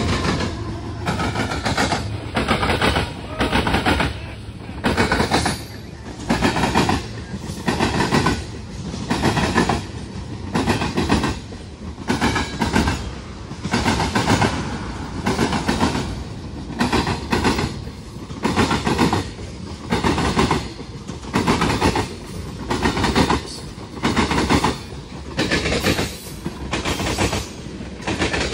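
Freight railcar wheels clattering loudly over a rail diamond crossing, a burst each time a set of wheels crosses, roughly every one to two seconds. The uploader puts the loudness down to the diamond's centre sitting slightly higher than the normal track level.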